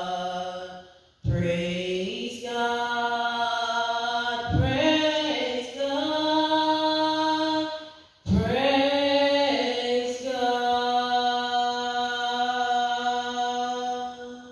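A woman singing solo into a microphone: long, held notes in three phrases, with short breaks about a second in and about eight seconds in. The last note is held until it stops near the end.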